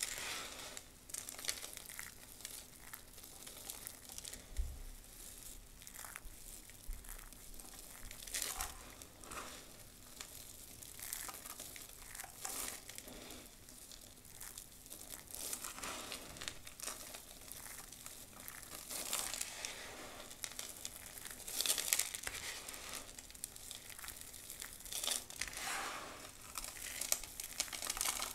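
Dry soap being crushed and crumbled by hand: a continuous, irregular crackling and crunching, with a few louder crunches in the latter part.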